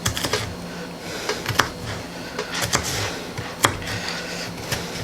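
Kitchen knife dicing a jalapeño pepper on a cutting board: irregular sharp taps of the blade on the board.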